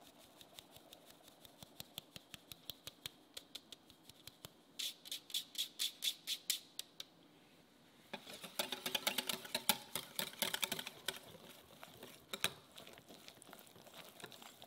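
A mesh flour sieve being shaken and tapped over a glass mixing bowl: light fast ticks, then louder regular taps about three a second. About eight seconds in, a wire whisk clicks rapidly against the glass bowl, stirring the sifted flour into the egg yolk batter, and then fades.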